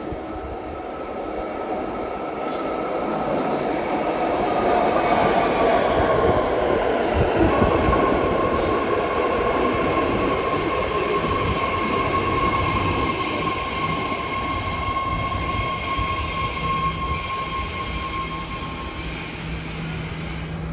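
BART Fleet of the Future subway train pulling into an underground station. Its rumble grows louder as the cars run in, then eases as the train slows to a stop, with a steady high whine carrying through the braking.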